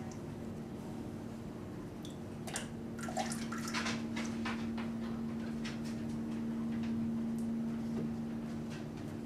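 Liquid slip pouring off an upturned mug and dripping into a plastic jug: a quick run of drips and spatters a couple of seconds in, then scattered single drips. A steady low hum sounds underneath.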